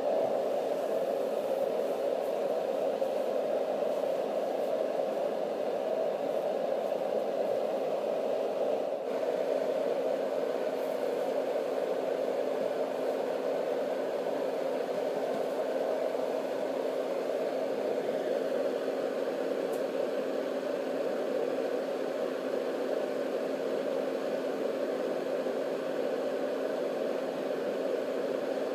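Marpac Sound Screen 980A white noise machine running: its motor-driven fan makes a steady rushing noise with a faint steady hum underneath. There is a brief dip in level about nine seconds in.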